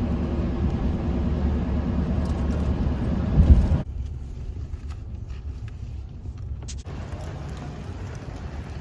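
Car rumble and road noise, steady and fairly loud. About four seconds in it drops suddenly to a quieter low rumble.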